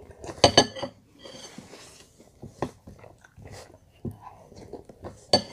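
A metal spoon clinks against a glass cereal bowl twice about half a second in, then again near the end, with quieter chewing of cereal and milk between the clinks.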